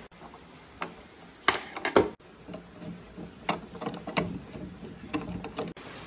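A few sharp metallic clicks and knocks from the mechanism of an old sewing machine being handled, the two loudest about a second and a half and two seconds in.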